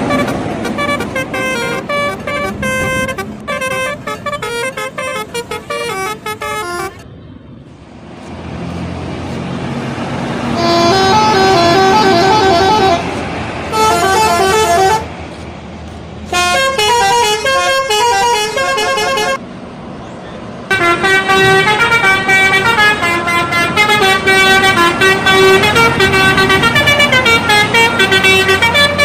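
Indonesian bus telolet horns, multi-trumpet air horns, playing quick multi-note tunes that step up and down in pitch. The tunes come in several loud runs with short breaks between them, and the longest runs through the last third.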